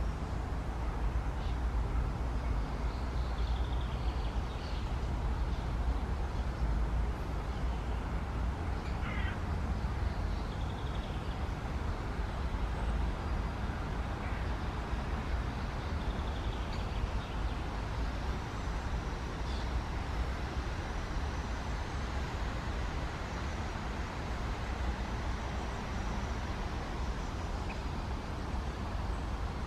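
A bird calling a few times, short scattered calls over a steady low rumble.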